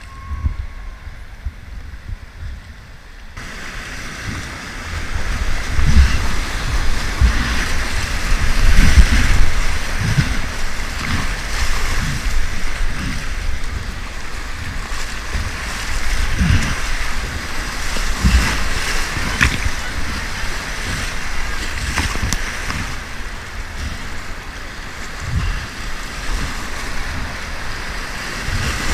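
Rushing whitewater of a river rapid heard from a kayak paddling through it, getting much louder a few seconds in as the boat enters the rapid. Low thumps of water and wind buffet the microphone throughout.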